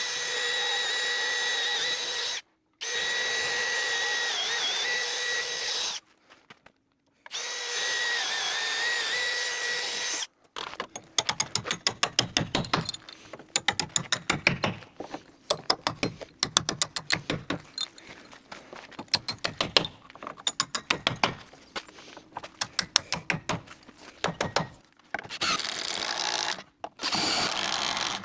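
Power drill with an auger bit boring bolt holes through timber: a steady motor whine, stopping briefly twice. From about ten seconds in comes a rapid clatter in short repeated bursts, like an impact driver hammering. Near the end the drill whine comes back.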